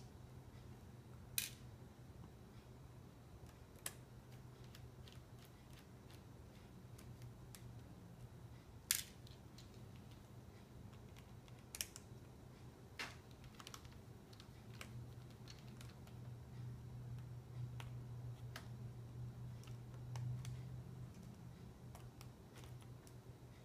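Small Phillips screwdriver backing tiny screws out of a laptop's LCD panel brackets: faint scattered clicks and taps of the tool, screws and plastic, with a few sharper clicks, over a low steady hum.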